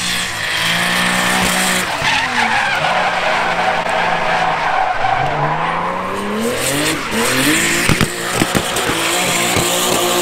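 A drift car sliding with its tyres squealing. Its engine revs rise and fall as the throttle is worked through the drift, and a few sharp bangs come about eight seconds in.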